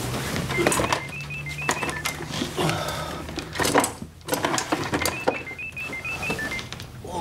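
Mobile phone ringtone, a short melody of electronic beeps played twice, with bedclothes rustling as someone in bed reaches for the phone.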